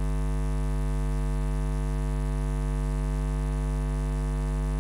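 Steady electrical mains hum: a constant low buzz with a ladder of higher overtones, unchanging throughout.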